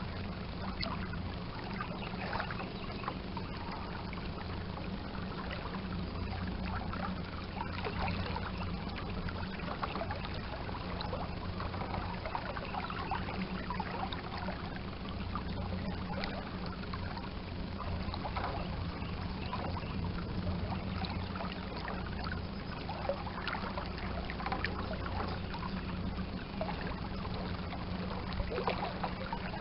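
Water lapping and trickling against a small boat's hull, over a steady low hum.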